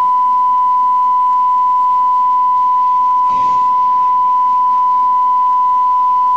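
Steady, unbroken TV test-pattern tone, the standard 1 kHz reference tone that goes with colour bars and a test card, over a faint hiss.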